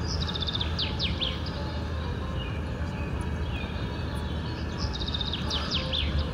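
A songbird sings the same short song twice, about five seconds apart: a quick run of notes stepping down in pitch, then a few sharp downward sweeps. It sounds over a steady low rumble of a vehicle driving.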